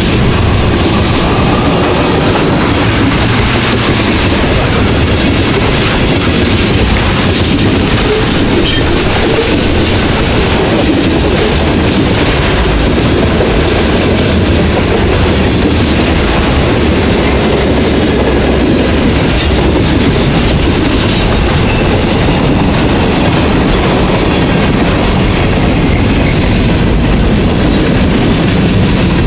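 Freight cars of a long manifest train rolling steadily past: a continuous loud rumble of steel wheels on rail, with a clickety-clack of wheels over the rail and scattered sharp clicks and clanks.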